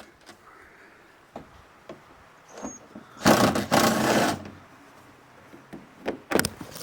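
Hand tools undoing a 12 mm bolt on the fan housing: a few light clicks and knocks, and a rasping burst about a second long in the middle.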